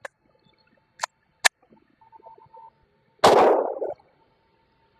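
A few sharp metallic clicks of the Glock G44 .22 LR pistol being handled, then one loud shot about three seconds in, with a short echo. The shot is fired with Aguila high-velocity ammunition, during a string that is producing failures to eject.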